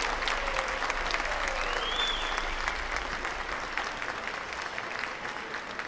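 Audience clapping steadily after a percussion ensemble piece, slowly dying away, with one high rising-and-falling call from the crowd about two seconds in.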